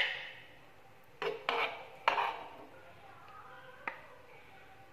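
Frying pan and plate clinking and knocking as fried chicken rolls are shifted by hand from pan to plate: a sharp clink at the start, then a few lighter knocks, each dying away quickly.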